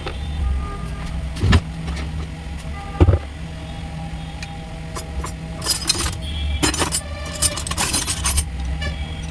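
Metal tools and alternator parts knocking and clinking during hand work on a car alternator: two sharp knocks early on, then a run of rattling metallic clatter in the second half, over a steady low hum.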